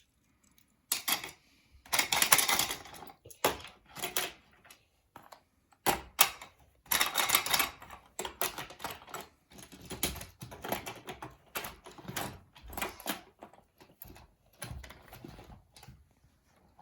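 Toy cars and other small plastic toys being handled, with irregular bursts of clattering and clicking and short pauses between.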